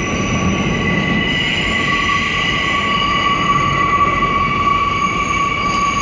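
New York City subway train of R160A-2 and R160B cars pulling out into the tunnel: a steady rumble of wheels on the track with a high, steady wheel squeal at several pitches, a little louder around the middle.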